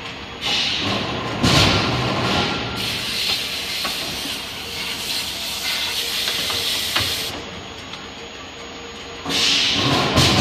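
Loud hissing from open die forging equipment in several bursts. The longest lasts about four and a half seconds in the middle, with a few faint knocks.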